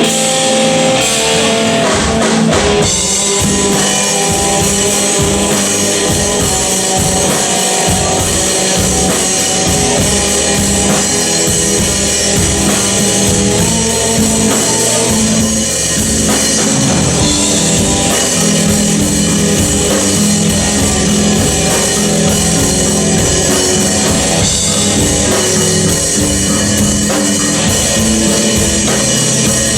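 A rock band playing live: a drum kit keeping a steady beat under guitars and bass, with little or no singing.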